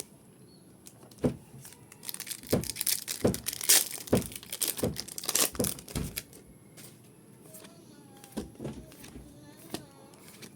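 Packaging crinkling and tearing as a card pack is handled and opened, a busy run of crackles and rips from about a second in until about six seconds in, then fading to a few light rustles.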